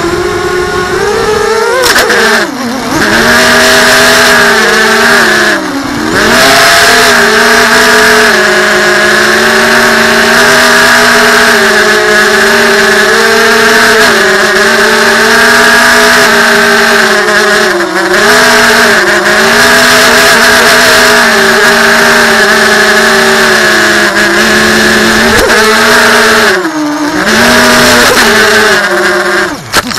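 Racing quadcopter's electric motors and propellers whining loud and steady, the pitch dipping and climbing again several times with the throttle. The sound cuts off at the very end as the quad comes down in the grass.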